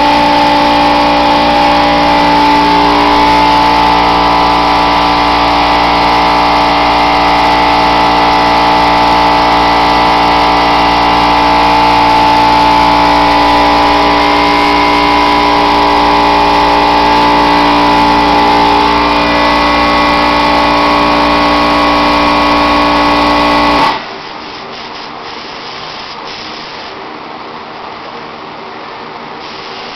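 Air compressor for a paint spray gun running loudly and steadily, a constant machine hum with several steady tones. Near the end the loud running stops abruptly, leaving a much quieter steady hiss.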